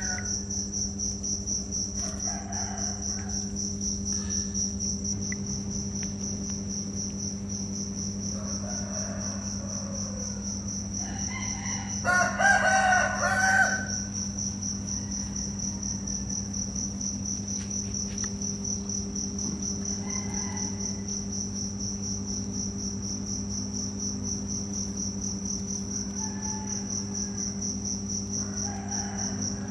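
Crickets trilling steadily at a high pitch over a low steady hum, with a few short pitched calls coming and going, the loudest about twelve seconds in.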